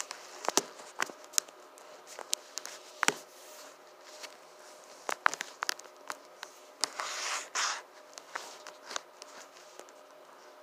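Scattered small clicks and knocks of objects being handled, with a short rustle about seven seconds in.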